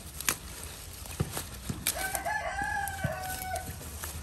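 A rooster crowing once, one long call of nearly two seconds starting about halfway through. Short sharp snaps and leaf rustling come from radishes being pulled out of the soil by hand, the loudest snaps near the start.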